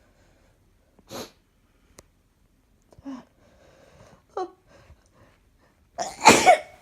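A person sneezing: a few short sniffs and catching breaths, then one loud, sudden sneeze near the end.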